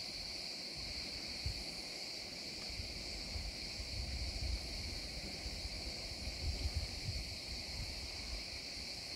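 Steady, continuous chorus of insects chirring from the wooded shore, with an uneven low rumble underneath.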